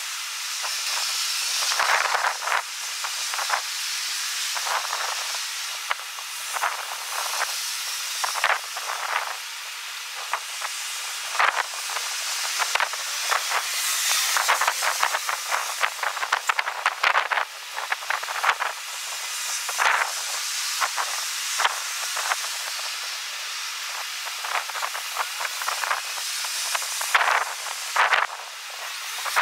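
Strong wind buffeting the microphone: a steady hiss broken throughout by many quick crackling gusts.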